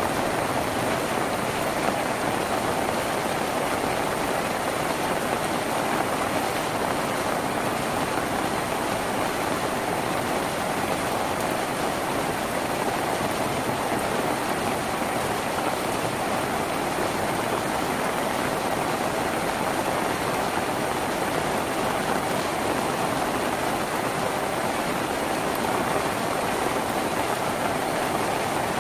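Steady heavy rain drumming on a tin roof, an even, unbroken hiss with no single drops standing out.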